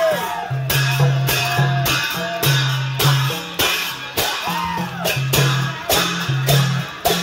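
Newari procession music from dhime drums and hand cymbals played in a steady rhythm, the cymbals clashing about twice a second over repeated deep drum notes.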